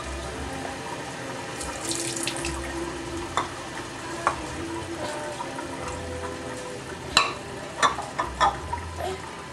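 Kitchen faucet running steadily into the sink, with a few sharp knocks as a small bowl and spoon hit the basin; the loudest three come in quick succession near the end.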